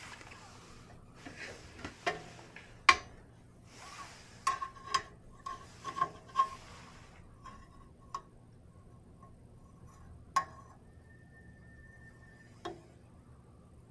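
Steam wand of an Olympia Cremina SL espresso machine hissing into a stainless steel pitcher of soapy water, with sharp metallic clinks and taps of the pitcher. The hiss stops after about seven seconds, leaving a few single clicks.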